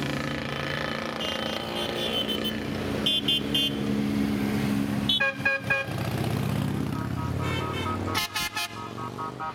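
Motorcycles and scooters riding past with their engines running, while horns toot in short repeated beeps. The beeps come in several bursts, with a quick run of them near the end.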